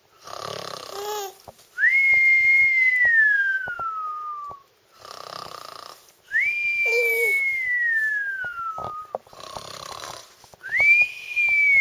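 A person doing a cartoon-style snore three times: a noisy breath in, then a whistled breath out that slides down in pitch over about three seconds.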